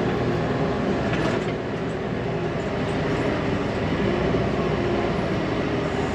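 Diesel engine of a 1999 Fermec TLK760 backhoe loader running steadily at work, heard from inside the cab, with a brief clatter about a second in.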